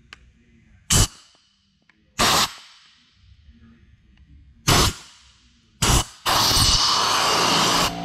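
Compressed-air blow gun fired into a plastic casting mold to force a cured epoxy blank out: four short hissing blasts, then a longer blast of about two seconds near the end. The blank does not release.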